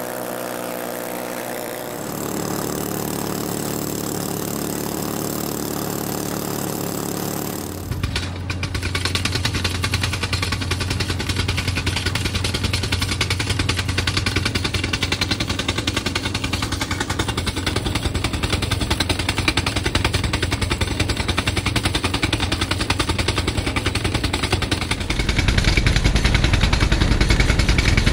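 Truck-mounted rock drill boring into bedrock. An engine runs steadily at first, then about 8 seconds in the drill starts hammering in a fast, even, rattling run of strikes that carries on. The hammering grows louder and heavier near the end.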